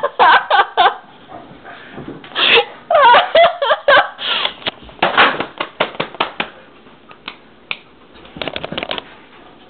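A person laughing in repeated bursts, some quick runs of clipped pulses and some with rising and falling pitch, with a light scuffling noise between the bursts.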